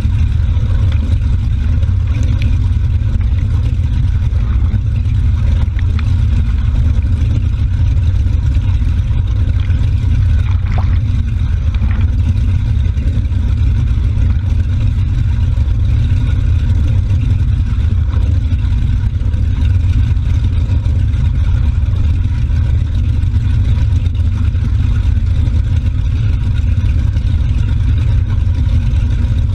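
Motorboat underway at a steady speed, its engine running smoothly while the propeller wash churns the wake at the stern: a loud, steady, deep rumble with splashing water over it.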